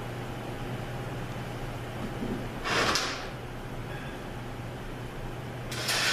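Metal transmission parts sliding and scraping as the sprag is worked out of a TorqueFlite 904 transmission case: two short scrapes, one midway and one near the end, over a steady low hum.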